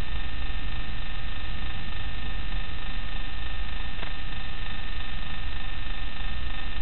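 Steady electrical hum and hiss with a low rumble underneath, unchanging throughout, with one faint tick about four seconds in.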